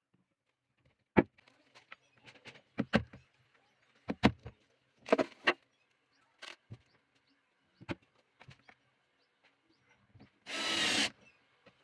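Scattered knocks and clacks of wood and tools being handled, set down and tapped while fitting magnets into a wooden piece, then a short whirring burst near the end, like a power drill briefly run.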